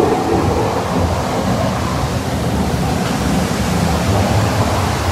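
Steady rushing of water with a low rumble, heard from a ride boat moving through the dark tunnel of Disney's Pirates of the Caribbean.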